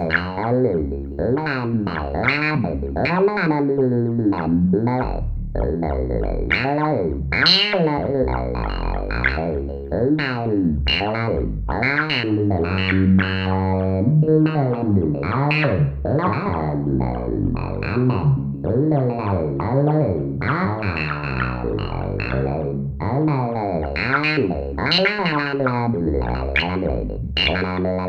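Arturia MicroFreak synthesizer producing buzzing, distorted alien-speech effect: pitched syllables that swoop up and down and break off every fraction of a second like talking, over a steady high whine.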